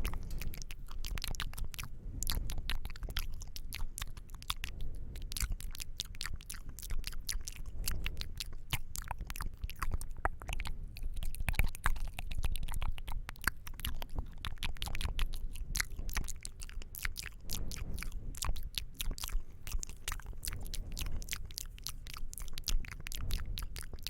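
ASMR mouth sounds: a continuous stream of rapid, wet clicks and smacks of lips and tongue.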